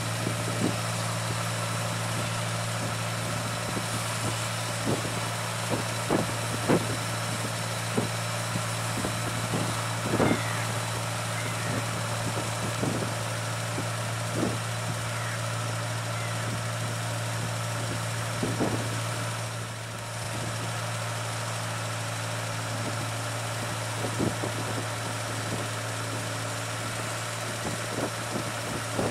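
Rice combine harvester's engine running steadily while it cuts paddy, a constant low drone with scattered short knocks and clicks.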